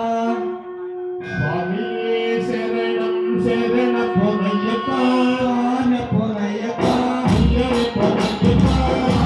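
Ayyappa devotional song: a sung melody over instrumental backing, with one note held for several seconds in the first half. Heavy drumming with sharp percussion comes in near the end.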